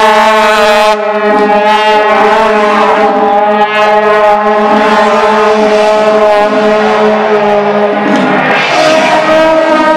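Several long straight brass processional horns (shaojiao) blown together in long, steady droning notes. About eight seconds in the notes break off and the horns come back in on a higher pitch.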